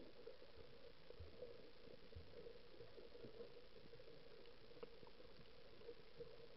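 Near silence: faint, muffled underwater ambience picked up through a camera's waterproof housing, a steady low hum with a few soft low knocks and a faint tick.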